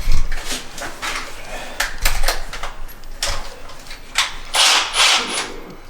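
Irregular clatter and rustling of tools and parts being handled, with several short, sharp noisy bursts, the loudest a little after four and a half seconds in.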